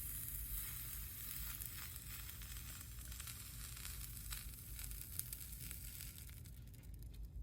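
Flux sizzling and crackling under a hot soldering iron as solder is melted along the copper foil of a stained-glass seam. The sizzle cuts off suddenly at the end, when the iron is lifted.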